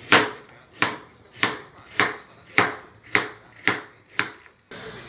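Chef's knife slicing a carrot into thin rounds on a plastic cutting board: eight even chops, nearly two a second, stopping shortly before the end.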